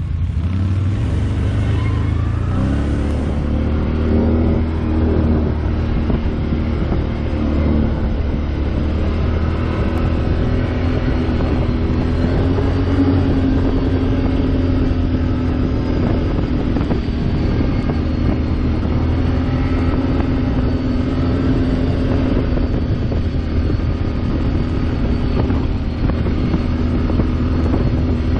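ATV engine running steadily at a low trail pace, its pitch rising and falling a little with the throttle.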